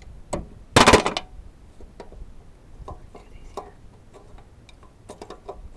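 Ratchet wrench clicking as it works the tight cylinder head bolts of a Briggs & Stratton engine, with a loud metallic rattle about a second in and scattered ticks after it.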